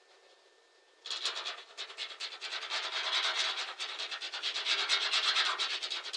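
A hand scratching rapidly at the primer-coated steel wall of a shipping container in a scratch test of a nanocoating applied over the primer. The quick scraping strokes, about ten a second, start about a second in.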